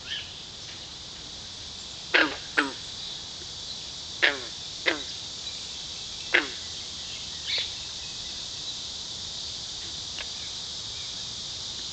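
Steady high-pitched chorus of insects, broken by several short calls that slide steeply down in pitch, mostly in pairs, in the first seven seconds.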